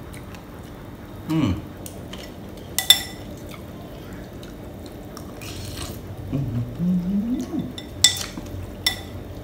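A metal spoon and fork clink against a ceramic soup bowl while noodles are eaten. There is one sharp clink about three seconds in and two more near the end, with a man's short hums in between.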